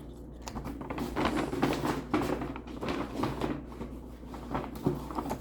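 Handling noise close to the microphone: irregular rustling with small clicks and knocks as a small plush clip toy and its tag are handled.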